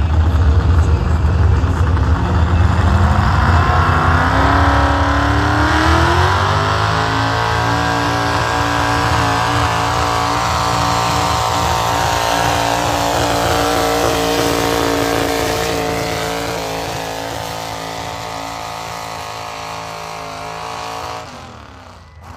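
Modified pickup truck engine at full throttle, dragging a weight-transfer sled down a pull track. The revs climb steeply over the first several seconds, then hold high and steady while the sound slowly fades with distance, dropping off sharply near the end.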